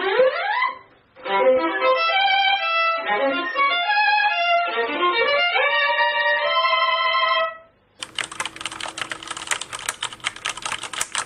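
A quick rising swoop, then a short melodic music cue of changing held notes lasting about six seconds. After a brief gap, a rapid run of keyboard typing clicks.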